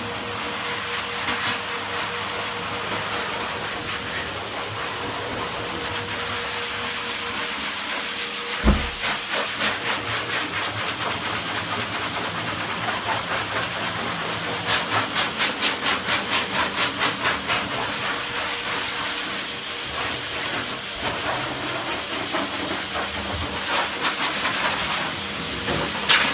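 High-velocity dog grooming dryer (a 'blaster') blowing air through its hose and nozzle: a steady rushing hiss with a thin high whine. A little past the middle the sound pulses quickly, about four times a second, for a few seconds, and there is a single knock about a third of the way in.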